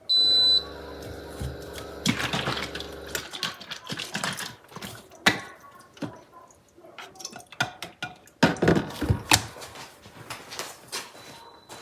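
A kitchen appliance beeps once with a short high tone, then a small motor hums steadily for about three seconds. After that come scattered clinks and knocks of dishes and utensils being handled while coffee is made.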